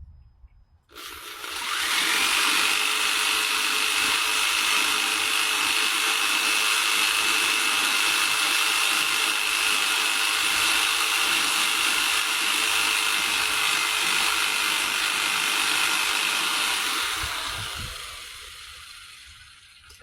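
Jigsaw cutting hardwood: the motor starts about a second in with a rising whine, runs at a steady speed, then winds down and stops near the end.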